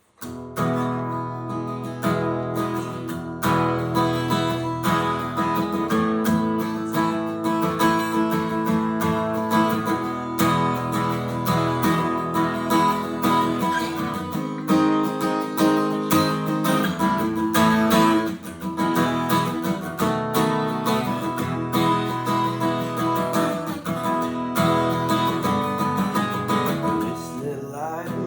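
Strummed acoustic guitar playing steady chords as instrumental worship music.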